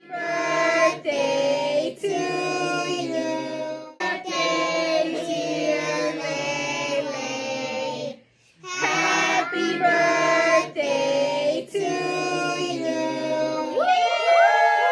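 Singing with music: a high, child-like voice holds notes in phrases about a second long over a steady low tone, with short breaks about four and eight seconds in. Near the end, different voices come in, sliding up in pitch.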